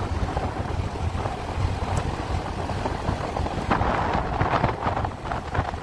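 Vehicle running along a road, a steady low rumble with wind buffeting the microphone; the wind gusts grow stronger a little past the middle.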